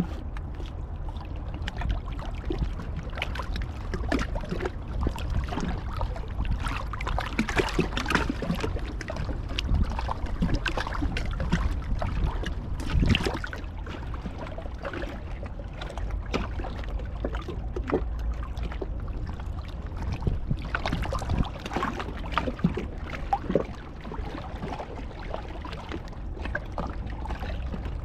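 Sea water sloshing and splashing at the shore in irregular swells, over a steady low rumble of wind on the microphone.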